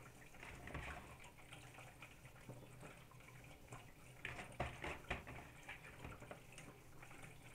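Hands spreading wet sliced onion and carrot over potato chunks in a metal pan: faint, wet rustling of the vegetable pieces, with a few soft clicks about four to five seconds in.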